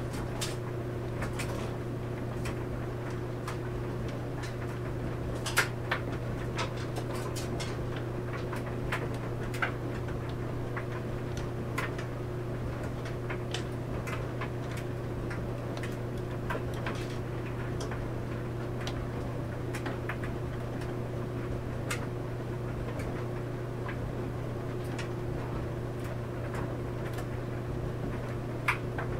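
Clothes dryer running: a steady low hum with laundry tumbling in the drum, broken by scattered sharp clicks and taps at irregular intervals.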